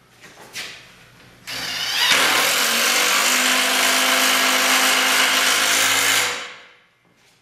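Power drill driving a screw into a log joint of a log chair, the motor running steadily for about four and a half seconds and then winding down. A few light clicks come just before it.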